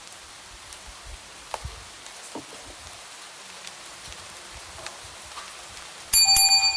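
Light rain falling steadily, a soft hiss with scattered drop taps. About six seconds in, a bright bell-like chime of several ringing tones sounds loudly and fades over about a second.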